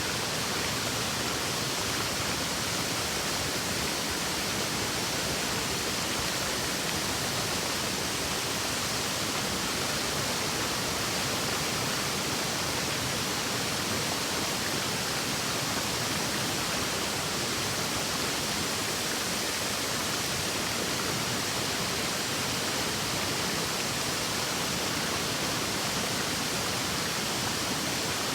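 A waterfall on a river, its falling water making a steady, even rush with no breaks or changes.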